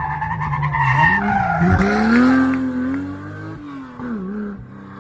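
Porsche 911 SC rally car's air-cooled flat-six running hard at steady revs, dipping and then climbing again about halfway, with the tyres squealing as the car slides through a corner for the first few seconds.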